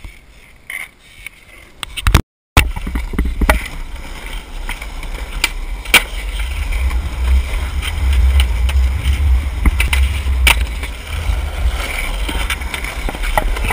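Skateboard wheels rolling on asphalt, a steady low rumble, with sharp clacks of the board snapping and landing every few seconds. The first two seconds are quieter, and the rolling starts after a brief dropout.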